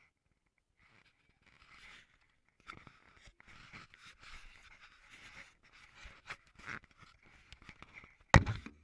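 Handling noise from an action camera held in the hand: scratchy rustling and small clicks of fingers and clothing against its housing, then one sharp knock about eight seconds in as it is set down.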